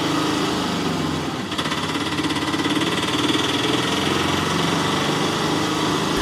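Small engine running steadily with a fast chugging rhythm, dipping briefly about a second and a half in.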